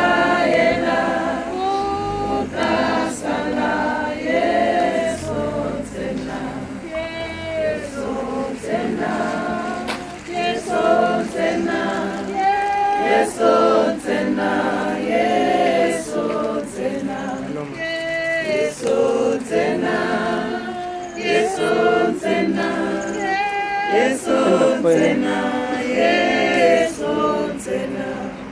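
A choir singing unaccompanied, several voice parts in harmony.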